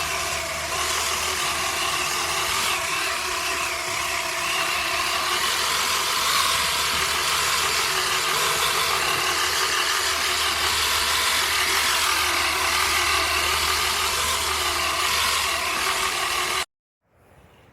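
A motor runs steadily, then cuts off abruptly near the end.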